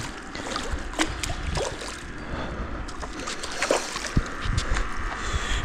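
Light splashing and dripping water with scattered sharp clicks and knocks.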